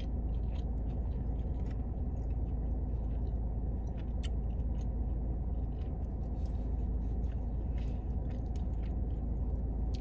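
A person chewing a mouthful of burger and licking a finger: faint, scattered wet mouth clicks over a steady low hum.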